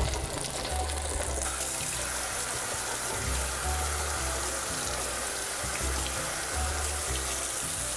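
Bisquick-coated walleye pieces in a deep fryer basket lowered into hot oil, the oil bubbling and sizzling with a steady hiss that jumps up about a second and a half in.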